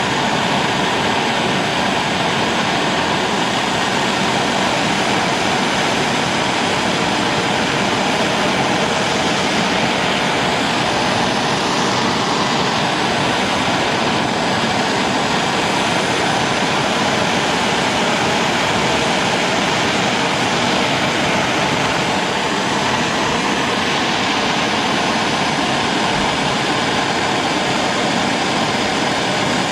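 Heat gun blowing steadily with an even rushing sound and a faint motor whine, heating freshly painted wrenches to cure the paint.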